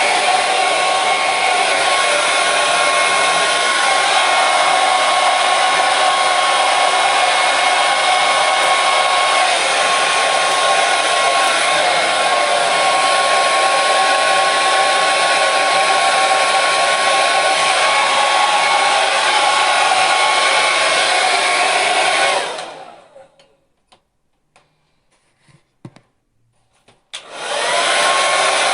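Hair dryer running, a steady rushing blow with a high motor whine. About three-quarters of the way through it winds down into near silence, broken by a few faint clicks. Near the end it starts up again, its whine rising back to full speed.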